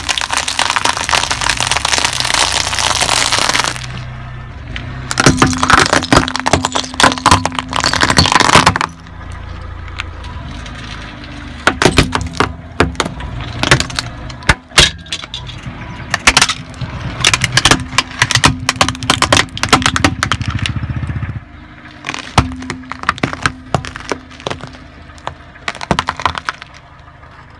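A car tyre rolling slowly over objects and crushing them. First comes a dense crackle of peanut shells being crushed, then several separate bursts of sharp cracks and snaps, including a brown glass bottle cracking and breaking, over a low rumble.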